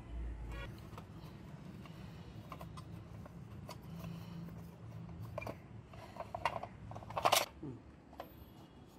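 Light clicks and rattles from handling the Honda CD 70's headlight, its plastic housing and a pair of locking pliers, with a denser burst of louder clatter about seven seconds in as the headlight unit comes free of its housing. A faint low hum runs underneath.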